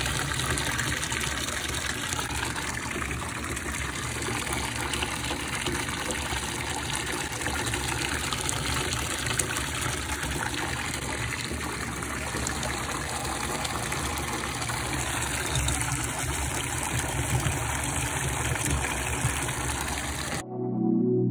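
Running water gushing steadily, cut off suddenly near the end by soft keyboard music.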